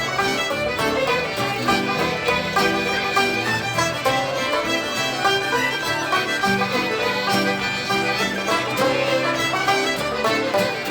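Background Celtic folk music on acoustic instruments: a fiddle plays quick notes over plucked strings.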